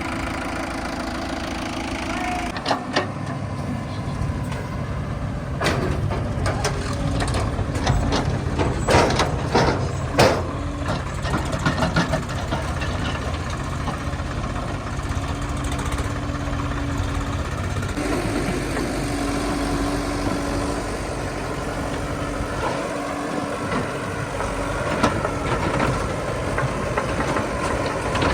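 Heavy diesel machinery running steadily, with a series of sharp knocks and clanks in the first half and a change in engine note about two-thirds of the way through.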